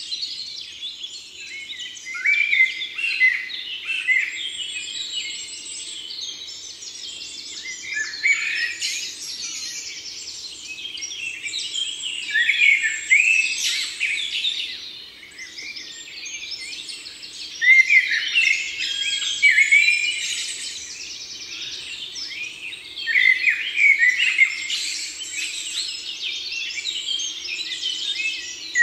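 Songbirds singing close by: a dense run of chirps and trills, swelling into louder bursts of song every few seconds, over a faint steady low hum.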